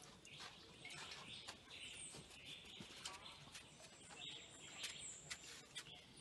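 Faint birds chirping in the background, with a few short falling whistles. Light clicks and scrapes of a kitchen knife peeling breadfruit.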